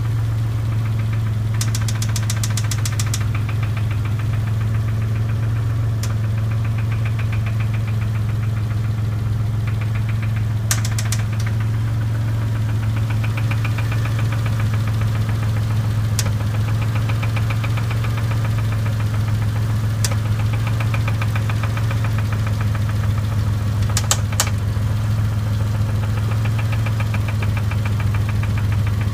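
Dodge Stealth 3.0-litre V6 running steadily with a fast, even ticking and knocking over the engine's hum, plus a few sharper clicks; the owner puts it down to engine knock and a bent valve.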